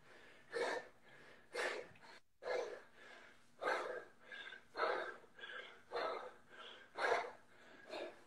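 A man breathing hard from strenuous exercise: heavy, gasping breaths at about one a second.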